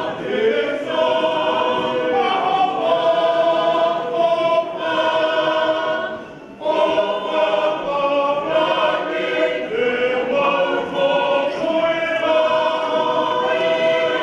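Large mixed Tongan church choir singing a hymn without accompaniment, in full held chords. There is a brief break for breath about six seconds in.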